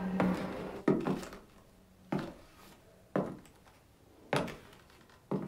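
Slow, deliberate footsteps on a wooden floor, about one step a second, five in all, each a sharp knock with a short echo. A held musical note fades out at the very start.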